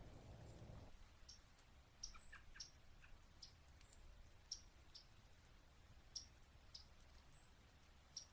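Faint, sharp chip calls of yellow-rumped warblers, about a dozen short high notes spaced irregularly, with a few lower notes mixed in. A low rumble fades out about a second in.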